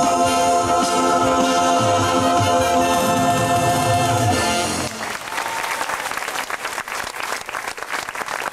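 A stage-show song ends on a long held chord of singers and band, cut off about five seconds in, and the audience breaks into applause.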